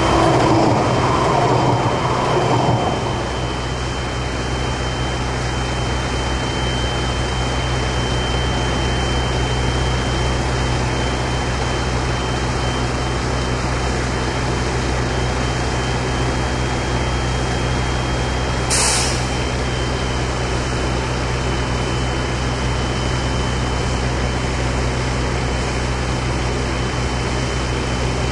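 Tram's electrical and running equipment humming steadily with a thin high whine. It is louder for the first few seconds, and there is one short hiss about two-thirds through.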